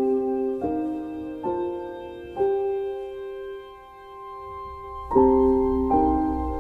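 Background music: slow, gentle piano playing sustained chords, one every second or so, with a long held chord in the middle and a low bass entering about five seconds in.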